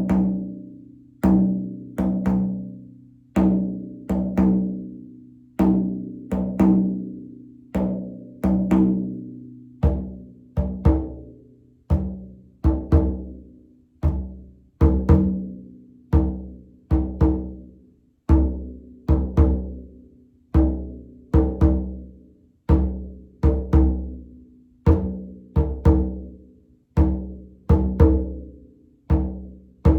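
Frame drum struck in a slow, steady beat, about one stroke a second, each stroke ringing on with a low hum and dying away before the next. From about ten seconds in the strokes have a deeper boom.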